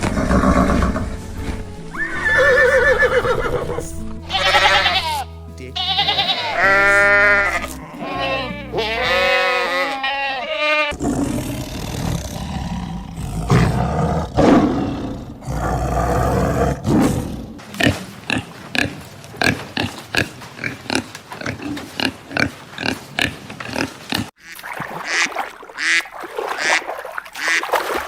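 A series of different animal calls over background music, ending in a run of short, rapid calls, several a second.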